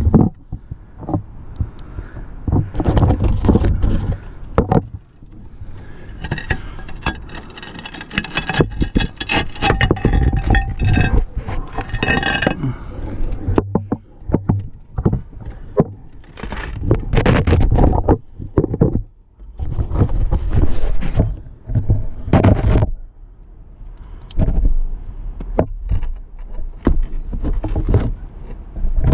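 Irregular scraping, rubbing and knocking of a handheld GoPro camera pushed along against plastic mesh and concrete roof tiles, with a low rumble of handling noise on its microphone.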